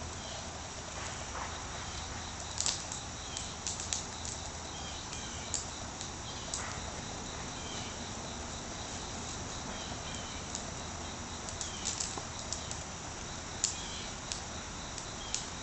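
Small rocks let fall by hand, landing with scattered sharp clicks, some single and some in quick little clusters, over a faint steady background.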